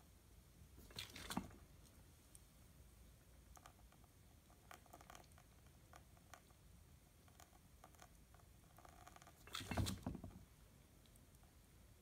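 Faint espresso stream from a bottomless portafilter on a lever machine, running into a cup with scattered small ticks and patters. Two brief louder noises come about a second in and near the end.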